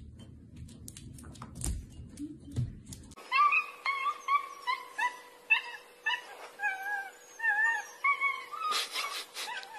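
Light taps and clicks, then a dog whimpering: a run of short, high whines that bend up and down, one or two a second, over a faint steady hum.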